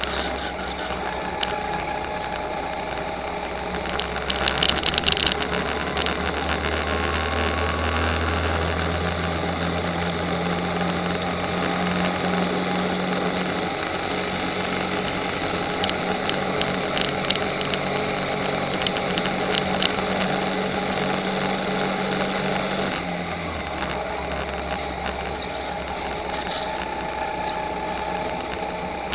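Kart engine running steadily at speed, heard close up from a camera mounted on the kart. Its note drops somewhat near the end. Two bursts of sharp rattling clicks are heard, one a few seconds in and one about two-thirds of the way through.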